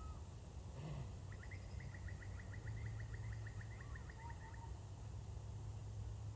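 A bird calls a rapid trill of short, falling, high notes, about five a second, lasting some three seconds, with a few separate whistled notes around it, over a steady low rumble. A brief soft thud about a second in.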